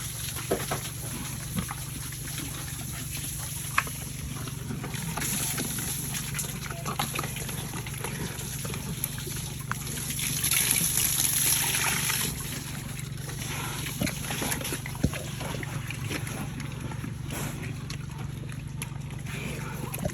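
Pigs eating wet feed at a trough, with slurping, smacking and sloshing. A steady low hum runs underneath, and there is a louder hissing, splashing stretch about halfway through.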